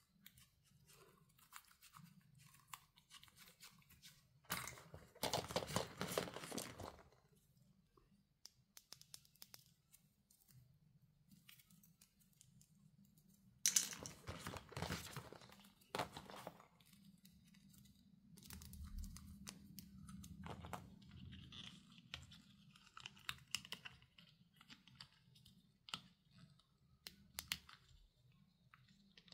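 Hands opening and handling plastic packaging and small plastic toys: two louder spells of rustling and crinkling, the second starting with a sharp click, with softer rustling and scattered light clicks in between.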